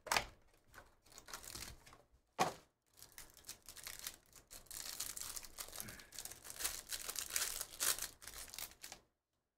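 Plastic trading-card pack wrapper being torn open and crinkled as the cards are pulled out. There are sharp crackles at the start and about two and a half seconds in, then steady crinkling that cuts off suddenly about half a second before the end.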